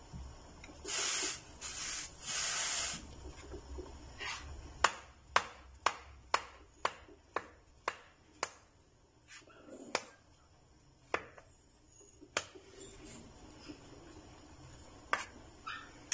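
Kitchen knife slicing a peeled banana on a plastic cutting board: a regular run of sharp taps, about two a second, as the blade meets the board, then a few scattered taps. Two short rustling noises come first.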